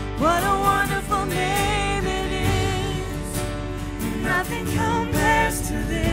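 Live worship band playing: a woman sings the lead melody with vibrato over strummed acoustic guitars, electric bass and keyboard.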